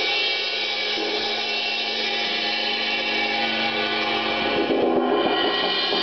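Istanbul cymbal played as a crash, its bright, washy ring sustaining steadily, with the sound swelling again briefly about five seconds in.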